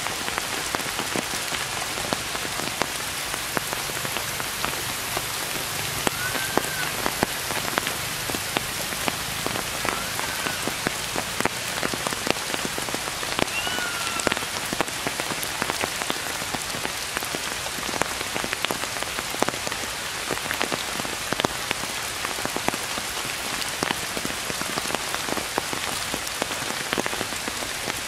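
Steady rain falling on forest foliage, with many distinct drops pattering throughout. A few brief chirps rise and fall over it now and then.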